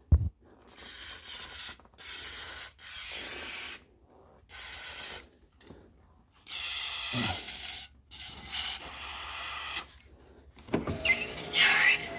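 BMW E39 power window running in about five short runs of one to two seconds each, the glass rubbing and squeaking against its rubber seals. The owner takes this for seals that are too dry, which the spray of window cleaner has not cured.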